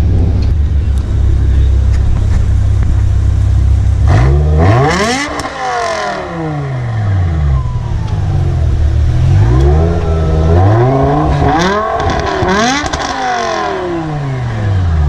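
BMW M5 E60's V10 with an aftermarket exhaust and resonator delete idling, then revved: one rev that rises and falls about four seconds in, then a longer rev around ten seconds in that climbs twice before dropping back to idle.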